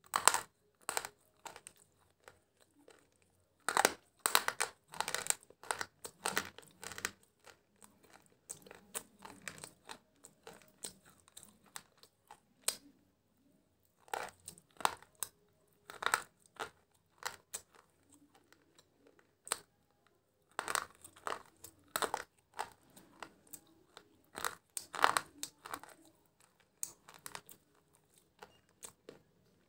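Close-up crunching as brittle white sticks are bitten and chewed. The sharp cracks of each bite come in clusters, with quieter crumbly chewing between them.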